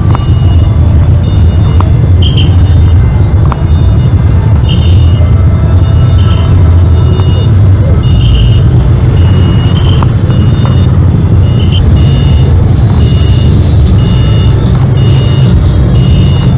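Background music: a steady low bass bed with a short high note repeating roughly once a second.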